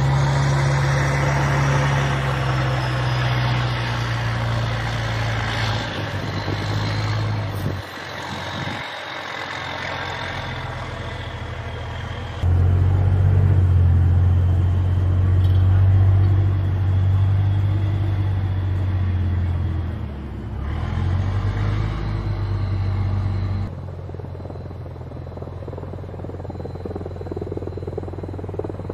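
Diesel engine of a USMC Amphibious Combat Vehicle, an eight-wheeled armoured vehicle, running as it drives over beach sand: a steady low drone with a faint high whine above it, which changes level and pitch abruptly several times.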